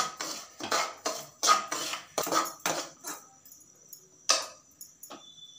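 Metal spoon scraping and clinking against a metal kadai while stirring semolina roasting in ghee: a run of quick strokes in the first three seconds, then a single louder knock of the spoon on the pan about four seconds in.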